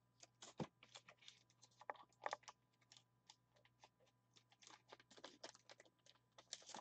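Faint, irregular light clicking and tapping, a few scattered clicks at first and a denser run in the second half.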